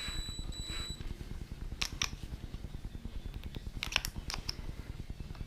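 Drill with a bent RC axle chucked in it, its motor whining briefly in the first second, followed by a few sharp light clicks as the metal shaft and drill are handled. A steady low hum runs underneath.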